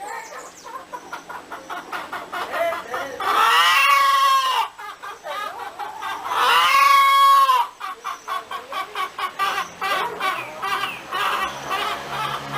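Chickens clucking in quick short notes, with two long arched crows of a rooster, each about a second and a half, a few seconds apart.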